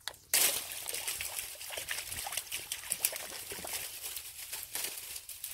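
Dry reed stalks crackling and rustling underfoot as a person stands up and shifts about in a dense dead reed bed. The dense crackle starts suddenly a moment in.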